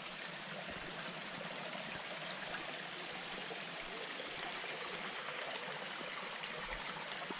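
Small woodland stream running over little waterfalls: a steady trickling and splashing of water.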